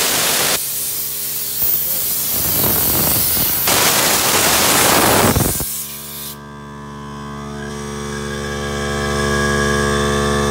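Compressed air hissing loudly out of an air hose's brass quick coupler as air is let out of a small Harbor Freight air compressor, with a few short breaks, cutting off about six seconds in. The compressor's motor then runs with a steady hum that grows louder as it refills the tank.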